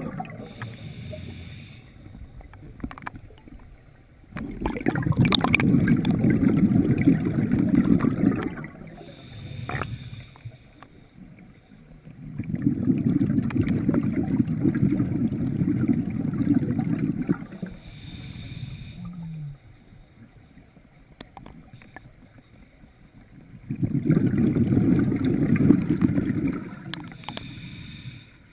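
Scuba diver breathing underwater: three long bursts of exhaled bubbles rushing past the camera, about every ten seconds, each followed by a short, fainter hiss of inhalation through the regulator.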